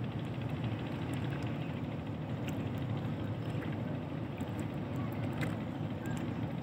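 Steady low rumble of ship's engines as the passenger ship gets under way, with faint scattered ticks over it.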